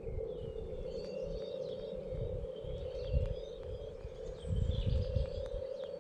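Small garden birds chirping and calling in short, scattered notes. Under them run a steady low hum and an uneven low rumble that swells about four and a half seconds in.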